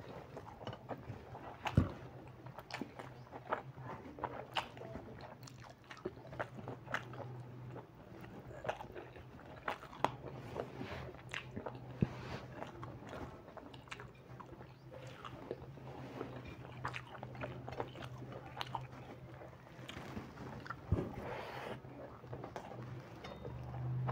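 Close-up eating sounds of rice and chicken curry eaten by hand: chewing and wet mouth noises, with fingers working the rice on a steel plate. The whole is a run of short sharp clicks, over a steady low hum.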